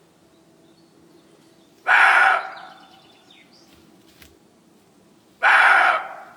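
Maned wolf giving its loud barking call twice, about three and a half seconds apart, each call about half a second long.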